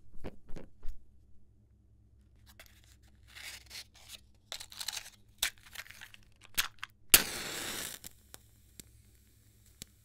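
Wooden match and cardboard matchbox being handled: a few sharp clicks and taps, then scattered scraping and rustling as the matchstick works against the box. About seven seconds in comes a sharp strike and a hiss of about a second as the match head flares, followed by a few faint ticks.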